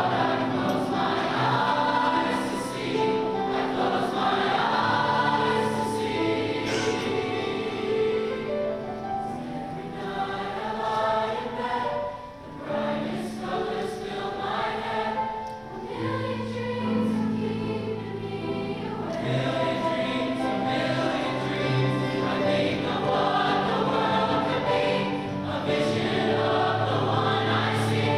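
Large mixed high-school choir singing in parts, holding long sustained chords; it briefly drops quieter about twelve seconds in, then builds again.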